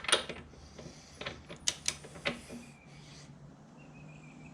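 A handful of short, sharp metallic clicks and clinks from hand tools being worked on a motorcycle rear wheel assembly in the first couple of seconds, then only a faint steady hum.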